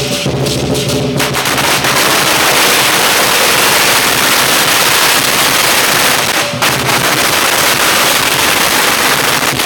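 A long string of firecrackers going off in a rapid, continuous crackle, starting about a second in and breaking briefly about two-thirds of the way through. Lion-dance drumming is heard for the first second, before the firecrackers drown it out.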